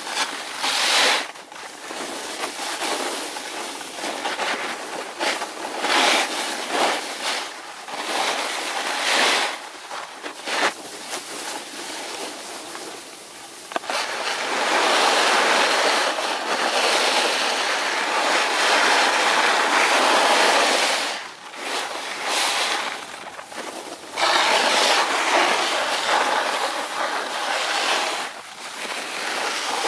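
Snowboard riding down a groomed piste: the board's edge scraping and sliding over packed snow in a hiss that swells and fades with the turns, with two long loud stretches in the second half.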